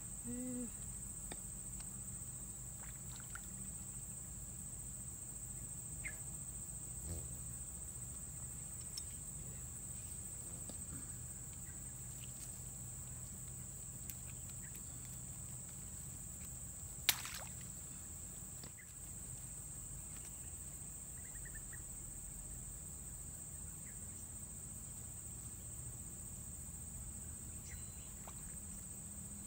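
Steady, unbroken high-pitched insect chorus, with one sharp click a little past halfway.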